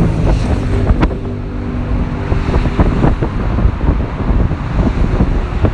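Wind buffeting the phone's microphone over a steady low rumble of passing road traffic.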